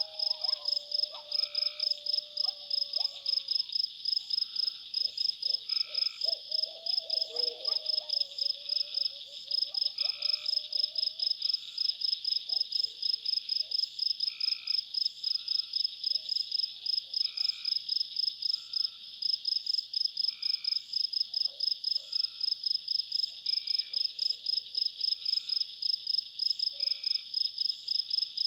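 Night chorus of insects chirping in a fast, even rhythm, with frogs calling over it in the first half: a long low call, then a pulsed trill.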